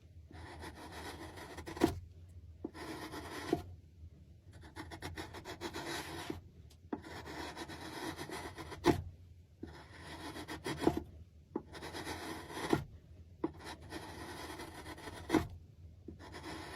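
A hand tool worked over wood in repeated rubbing, rasping strokes: about a dozen strokes, each a second or two long with short pauses between them, several ending in a sharp knock.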